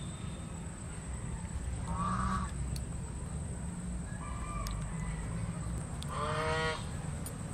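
Domestic fowl calling in the background: three short calls, about two, four and six seconds in, the last one the loudest, over a steady low hum.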